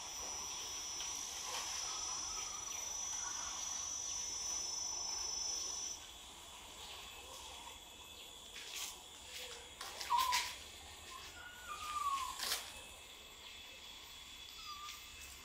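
A steady, high-pitched insect drone over faint outdoor ambience, cutting off suddenly about six seconds in. In the second half come a few short calls that glide quickly in pitch, and some sharp clicks.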